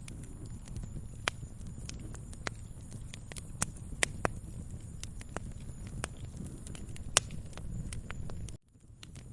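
Wood fire crackling, with sharp irregular pops and snaps over a low rumble of the burning; the sound cuts out briefly near the end and fades back in.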